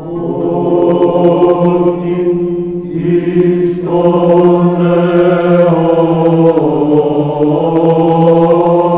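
Chanted vocal music fades in: voices hold long notes over a steady low drone, and the melody above steps to new notes about four seconds in and again near the end.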